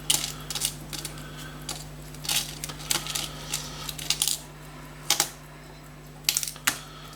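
Small metal punches clinking against each other and a hard surface as they are picked through, in a string of irregular sharp clinks.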